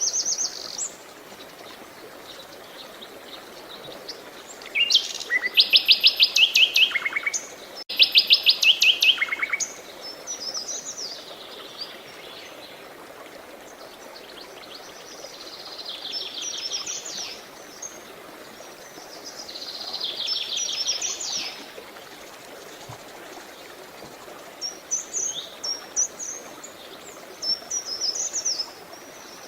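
Songbirds singing: bouts of rapid high trills and chirping phrases, the loudest two a few seconds in, with scattered chirps near the end, over a faint steady background hiss.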